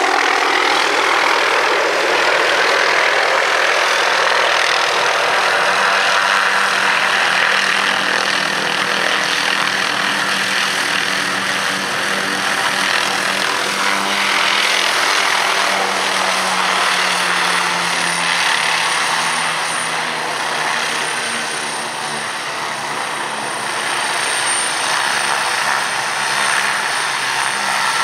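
MD 500E helicopter running steadily, its rotor and turbine engine making a dense, loud drone, with a thin high whine coming in about halfway.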